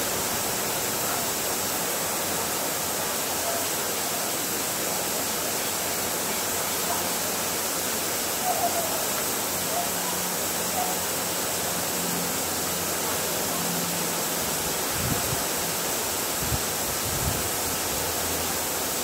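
A steady rushing noise with a few faint bird chirps in the middle, and a few soft low thumps near the end.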